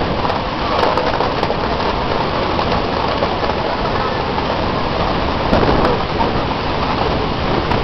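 Steady wind rushing and buffeting over the microphone on the open deck of a moving cruise ship, with passengers' voices faint beneath it.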